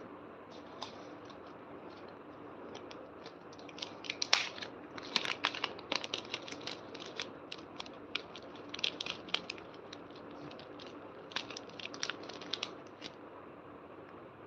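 Clear plastic zip-lock pouch of resin-art sequins crinkling as it is handled: a run of irregular sharp crackles, loudest about four to six seconds in, thinning out near the end.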